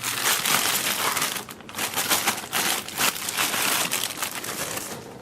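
Packaging crinkling and rustling in the hands as a boxed part is unwrapped, in irregular crackly spells that die down near the end.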